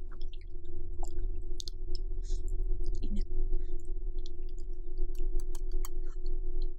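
Close-miked eating: irregular wet mouth clicks and smacks from chewing mac and cheese with chewy rice cakes, over a steady hum and low rumble.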